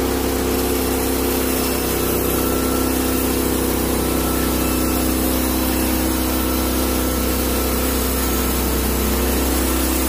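Norwood LumberPro HD36 portable band sawmill running steadily, its engine held at speed while the band blade cuts through a pine cant.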